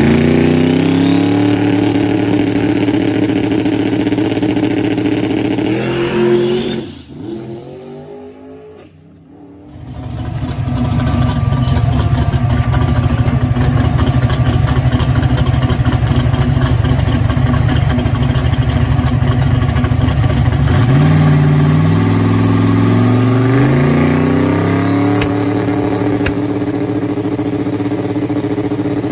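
Box 565 cubic-inch big-block Chevy twin-turbo engine in a Camaro drag car: revs climbing in steps, then after a short break a steady heavy idle, then the revs climbing in steps again near the end.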